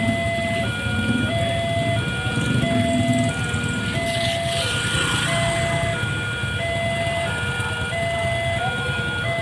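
Railway level-crossing warning alarm sounding a steady two-tone signal that switches between a high and a low tone about every two-thirds of a second. Motorcycle engines idle underneath, and a scooter passes close about four seconds in.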